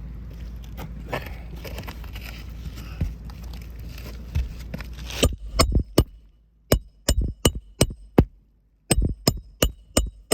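Hammer driving roofing nails through asphalt shingles: from about halfway a run of sharp, ringing blows, roughly two or three a second in short groups, after a stretch of low steady rumble with a few light taps.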